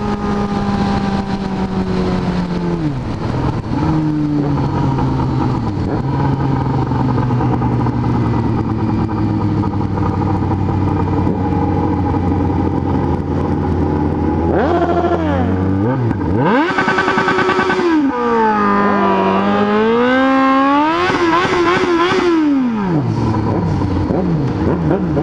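Inline-four sport motorcycle engine running at low revs, then revved hard about two-thirds in. Its pitch climbs steeply, holds high and loud, drops back, then climbs and falls once more near the end.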